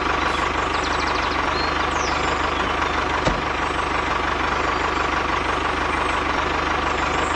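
Vehicle engine running steadily at idle, with a steady high whine over it and a single click about three seconds in.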